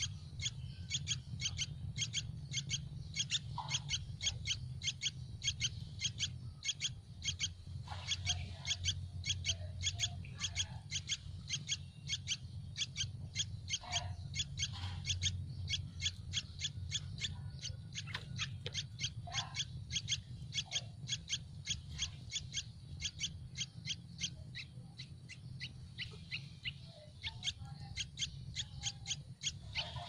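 Yellow-vented bulbul nestlings begging for food: a rapid, unbroken series of short, high peeping calls, about two to three a second, as the parent feeds them at the nest. A low steady rumble runs underneath.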